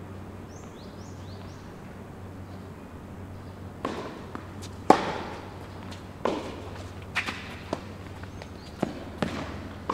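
Tennis rally on a hard court: a series of sharp pops from the ball being struck by rackets and bouncing, with a short echo in the hall. The pops start about four seconds in, over a steady low hum.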